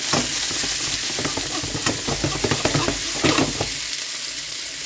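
Chopped onions, peppers and tomatoes sizzling in hot oil in a frying pan, a steady hiss. Short clicks and scrapes from stirring cluster from about one second in to just before the end.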